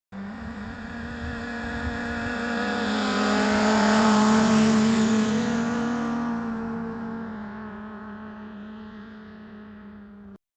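A motorcycle passing by: its engine note swells steadily, is loudest about four seconds in, then fades as it moves away. The sound begins and cuts off abruptly.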